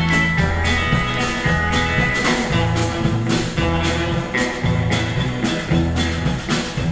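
Instrumental break of an upbeat country song: a band playing, with guitar over a steady beat, between sung verses.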